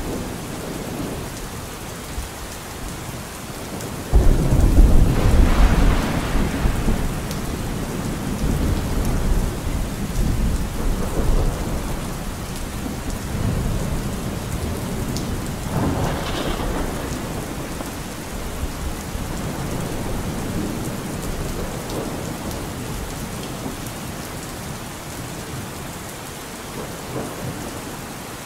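Steady rain with rolling thunder. A loud low rumble breaks in suddenly about four seconds in and rolls for a few seconds, and a weaker roll comes around the middle.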